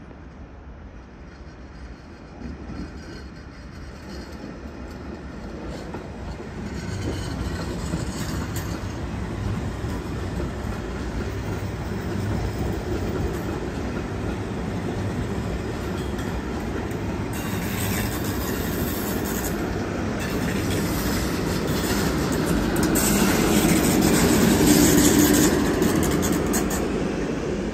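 Train approaching on the tracks, getting steadily louder over some twenty seconds, with a low rumble from its wheels and a rising hiss. It is loudest a few seconds before the end.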